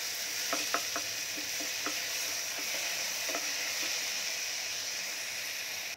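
Chopped onions, tomatoes and ginger-garlic paste sizzling steadily in hot oil in a pressure cooker as they are sautéed and stirred with a wooden spatula, with a few light taps of the spatula against the pot in the first half.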